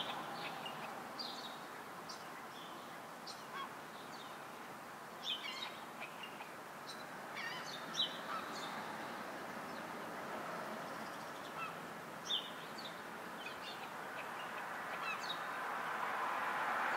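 Starlings giving short, high calls at irregular intervals, over a steady background of street noise.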